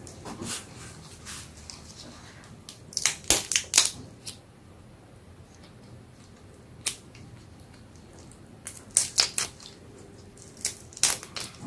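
Fresh head-on shrimp being peeled by gloved hands: short clusters of crisp crackling clicks as the shells crack and tear away, with quiet handling between, a burst about three seconds in, a single click near seven seconds, and more bursts near nine and eleven seconds.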